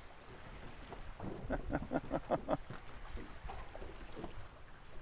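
Small waves slapping against the side of the fishing boat over a low wash of wind and water, with a quick run of light slaps in the middle.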